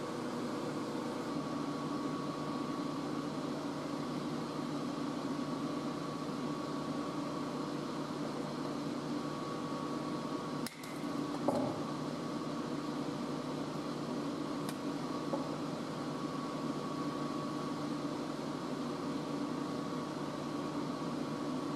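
Steady mechanical hum in a small room, with a few steady tones in it. A sharp click and a soft knock come about halfway through.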